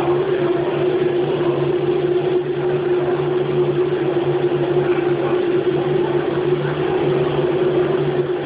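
Haas CNC machine running steadily, a constant whine over a low hum.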